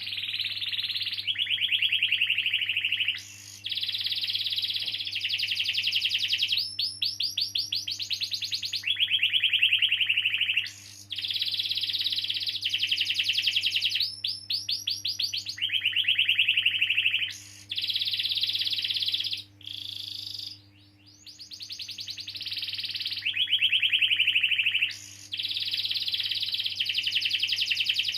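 Domestic canary singing long rolling trills: phrase after phrase of rapid repeated notes, each a few seconds long, with short breaks between them. A faint steady low hum runs underneath.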